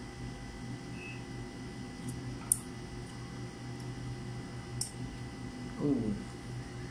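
Styrofoam divider squeaking against the glass as it is pushed into the mouth of a test tube: two sharp clicks, then a short squeak falling in pitch about six seconds in. A steady low hum runs underneath.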